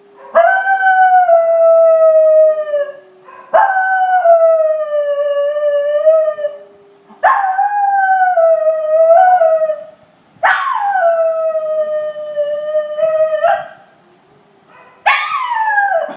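A schnauzer howling: five long howls in a row, each held about three seconds and sliding slightly down in pitch, with short breaths between them. The last howl is shorter and drops more steeply.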